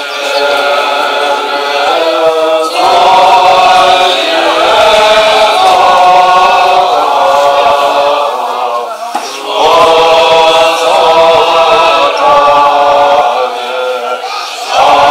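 A congregation of many voices chanting Tibetan prayers in unison, in long drawn-out melodic phrases with short breaks between them.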